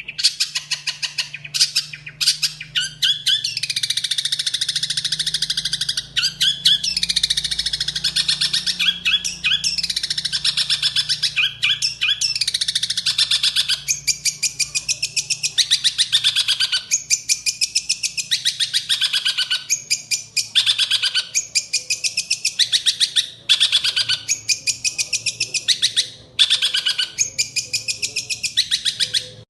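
A songbird singing continuously: fast chattering trills made of rapid repeated notes, with many down-slurred phrases and a few brief pauses.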